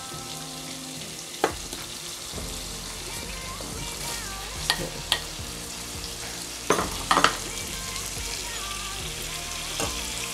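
Spiced masala sizzling in a frying pan while chopped tomatoes are scraped in from a wooden board and stirred with a metal spoon. Several sharp knocks of the spoon and knife against the pan and board break through the steady sizzle.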